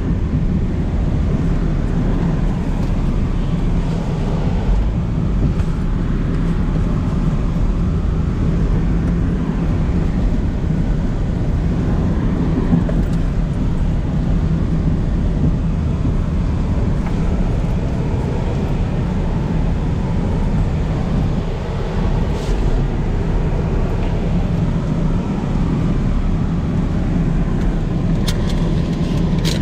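Steady engine and road noise of a vehicle driving across soft sand on deflated tyres, heard from inside the cabin.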